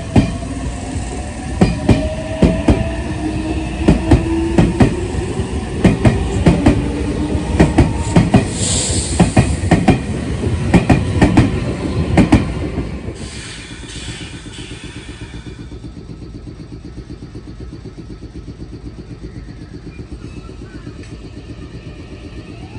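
Red Meitetsu electric train pulling away: its VVVF inverter motor whine rises in pitch as it accelerates, and its wheels clack over the rail joints at a quickening rate. About thirteen seconds in, the train clears the station and the sound drops to a quieter steady rumble. A new rising whine starts near the end as another train begins to move.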